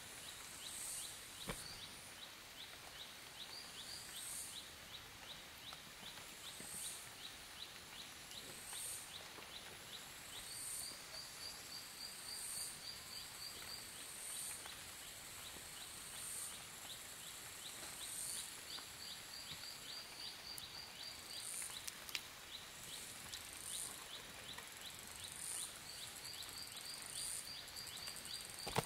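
Forest ambience of high-pitched animal calls: a fast, even ticking trill and a shrill call repeating every second or two, with a few faint knocks and a sharper one at the very end.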